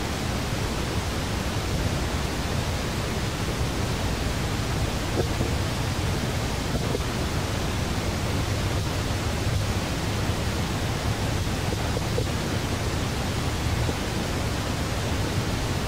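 Steady outdoor noise: a hiss over a low rumble, with a few faint ticks and no calls from the monkey.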